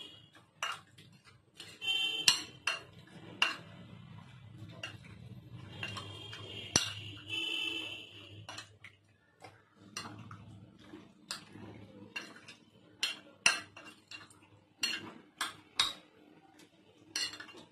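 Raw fish pieces being mixed by hand with spice marinade in a glass bowl: soft rubbing with many irregular sharp clicks and taps against the glass.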